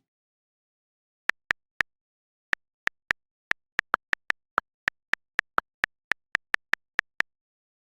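iPhone on-screen keyboard click sounds as keys are typed: about two dozen short, crisp ticks at an uneven typing pace of a few a second, starting about a second in. A few of the ticks are slightly lower in pitch than the rest.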